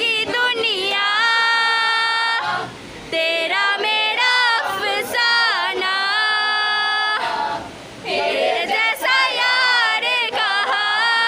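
A voice singing a Bengali folk song, holding long notes with a wavering pitch, with two short pauses between phrases.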